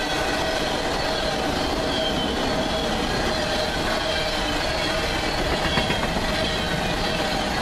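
Empty steel coal hopper cars of a unit coal train rolling past, wheels rumbling steadily on the rails. A faint high wheel squeal rides on top.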